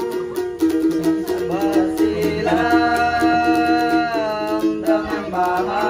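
Ukulele strummed in a steady rhythm under a man's singing voice holding long notes that slide between pitches.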